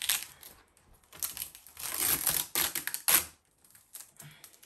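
Hands rustling and rubbing at a newly assembled chair, a run of scratchy, crinkling noises starting about a second in, loudest around three seconds in and ending in a sharp knock.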